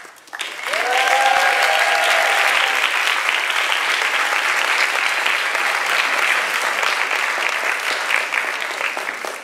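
Audience and stage group applauding steadily, with the clapping easing off near the end.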